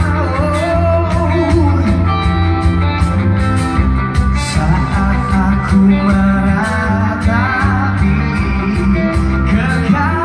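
Live pop-rock band music played over an arena sound system, heard from the stands: steady drums and bass under guitar, with a gliding melody line above.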